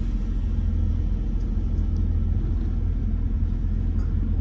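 Semi-truck's diesel engine running, a steady low rumble heard inside the cab.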